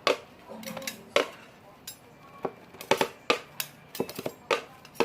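Irregular sharp clicks and clinks of hard objects knocking together, like utensils or small hard things handled against a dish, about a dozen in a few seconds.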